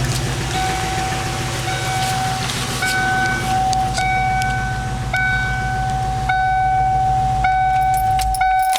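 A 1994 Ford Mustang's 3.8-litre V6 idling with a misfire fault, which the owner traced to a vacuum leak and poor aftermarket ignition parts, then shutting off near the end. Over it, an electronic warning chime from the car repeats about once a second and keeps going after the engine stops.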